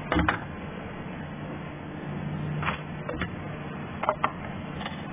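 Hard plastic clicks and knocks as the Lancia Lybra's air filter housing and intake duct are handled and moved: a double knock at the start, then scattered single clicks and a quick pair a little after four seconds in.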